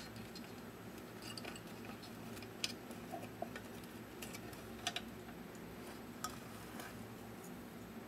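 Scattered light clicks and taps of small hard objects being handled, about half a dozen spread over several seconds, over a faint steady hum.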